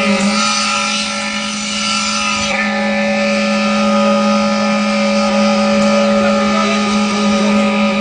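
Concrete mixer pump machine running: a loud, steady mechanical hum with a strong low tone, its higher noise shifting about two and a half seconds in.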